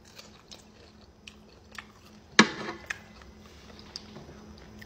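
A person chewing a bite of chicken with sauce: soft, wet mouth clicks and smacks at close range, with one louder sudden click about two and a half seconds in.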